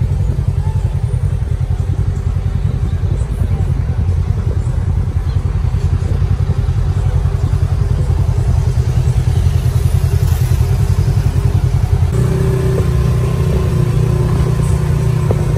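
Polaris RZR side-by-side's engine running steadily as it drives, a loud low drone; about twelve seconds in the note settles into a steadier hum.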